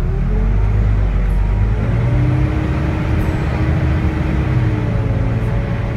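Volvo D9A diesel engine of a Volvo B9TL double-decker bus pulling under load on a hill climb, a deep steady drone with a whine on top that rises and falls in pitch: the 'hoovering' sound. The engine gets louder right at the start.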